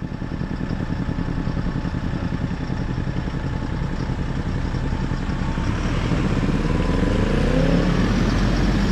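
Engine of a Toyota-based Vantech Cordeleaves camper van pulling away and driving past close by. The engine note rises as it speeds up, and it grows steadily louder, loudest near the end.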